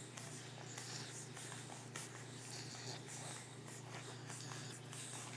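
Young boxer puppies nursing: soft irregular suckling clicks, snuffles and scratchy rustling against the bedding, over a steady low hum.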